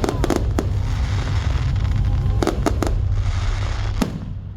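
Fireworks display: sharp bangs of aerial shells in quick clusters (several at the start, three about two and a half seconds in, one near the end) over a continuous low rumble and crackling.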